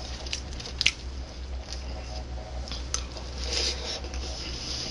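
Metal spoon scraping and clinking in a bowl of puffed wheat cereal and milk, with two sharp clinks about a second and three seconds in, then soft crunchy chewing of the sweetened puffed wheat cereal.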